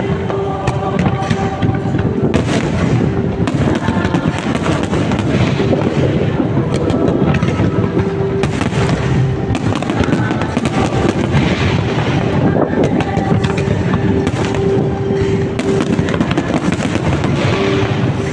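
Fireworks display going off continuously: a dense, unbroken crackle of many sharp bangs over a low rumble, with music playing underneath.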